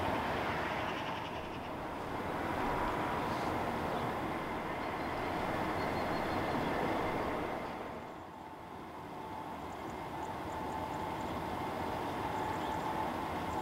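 Electric passenger trains running past at a distance: steady rolling noise of wheels on rail with a faint held whine, dipping briefly about eight seconds in.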